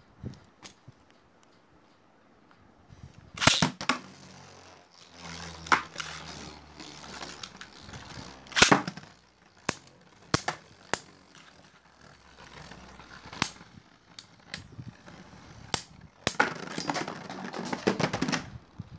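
Two Beyblade Burst spinning tops in a plastic stadium, clashing with sharp clacks that come singly every second or so, with a dense flurry of hits near the end. A faint spinning whir sounds between hits.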